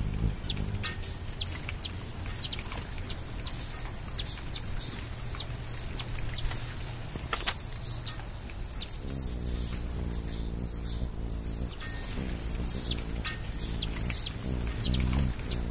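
Insects trilling steadily on one high pitch, which fades for a few seconds midway, with many short bird chirps over it. Soft, low, held music notes come in about nine seconds in.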